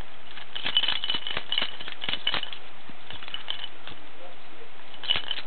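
Something small and hard being shaken by a baby, rattling and clicking in short bursts, the longest about a second in and two shorter ones later.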